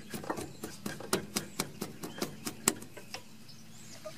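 Quick run of small metallic clicks, about four or five a second, stopping about three seconds in, from a wrench turning the bleeder screw on a front brake caliper: the bleeder being tightened closed at the end of bleeding the brakes.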